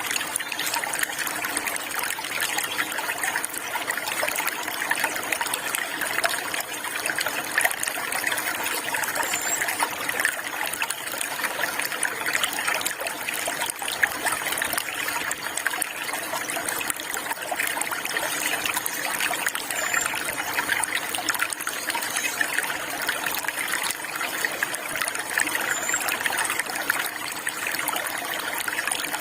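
Water flowing and trickling steadily over stones, a continuous even rush. A few faint, short, high bird chirps come through it now and then.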